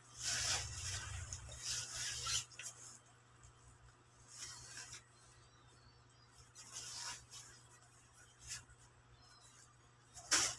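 Rustle and swish of a hooded jacket's fabric being unfolded, shaken out and held up by hand: a longer stretch of rubbing at the start, a few short swishes after that, and one sharp, loud swish near the end.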